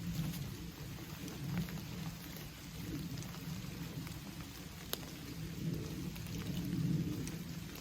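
Heavy rain falling steadily, a continuous low rumbling wash with scattered sharp ticks of single drops.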